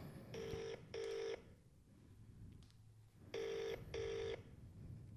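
British telephone ringback tone from a mobile phone on speaker: two double rings, "ring-ring", about three seconds apart, the outgoing call ringing and not yet answered.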